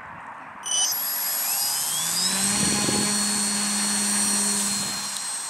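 Electric motor and propeller of a Multiplex Easy Glider RC plane, powered by a two-cell LiPo, starting up about a second in. Its whine rises in pitch as it spools up to full throttle, holds steady, then fades near the end as the plane moves away.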